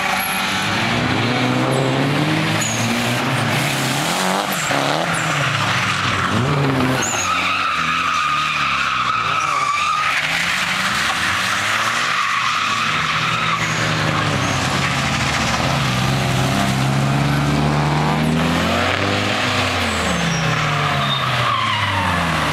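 Nissan 240SX drift cars' SR20 four-cylinder engines revving up and down over and over, with long stretches of tyre squeal as the cars slide sideways.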